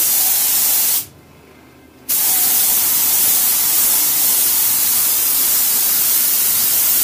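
Compressed-air paint spray gun hissing as it sprays bumper paint: a short burst of about a second, then, after a pause of about a second, a long steady spray from about two seconds in.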